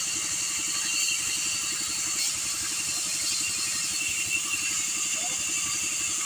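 Bandsaw running steadily with a fast, even pulsing as its blade cuts through a block of pallet wood.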